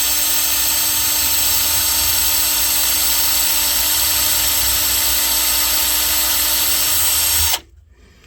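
Power drill running steadily with a high whine while boring a pilot hole with a very small bit, then cutting off suddenly about seven and a half seconds in.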